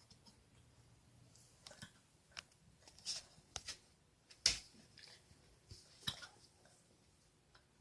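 An eight-week-old Bernese mountain dog puppy hiccupping: about seven short, sharp hiccups at uneven intervals, the loudest about halfway through.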